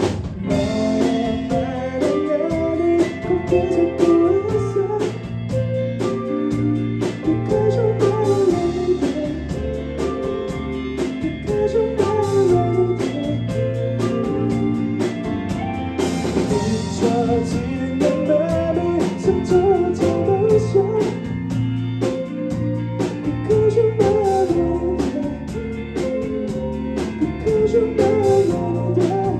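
Rock band playing live: two electric guitars, bass guitar and drum kit, with a sung melody over them.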